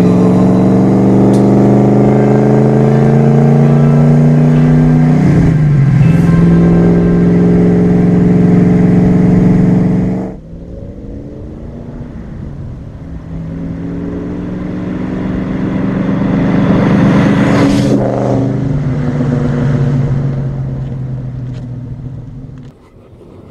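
Ford Falcon XW GTHO Phase 1's 351 Windsor V8 accelerating, revs climbing steadily with a brief dip about five seconds in, then climbing again until the sound drops away abruptly about ten seconds in. It then builds again, peaking about three quarters of the way through, and eases off near the end.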